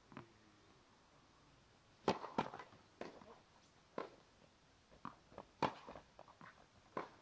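Tennis rally: a series of sharp pops as the ball is struck by the rackets and bounces on the court, irregularly spaced about half a second to a second apart, starting about two seconds in.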